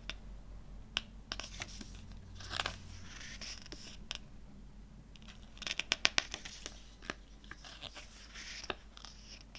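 CD packaging being handled and opened: rustling, scraping and tearing of plastic and card, with sharp clicks and a quick run of loud clicks about six seconds in.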